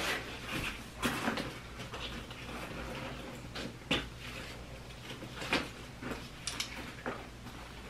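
A black nylon backpack being taken off and handled: fabric rustling, with scattered light clicks and knocks from its straps and metal buckles.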